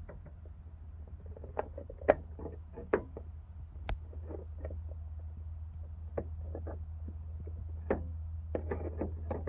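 Frigidaire window air conditioner running with a steady low hum, with irregular light knocks and clicks over it.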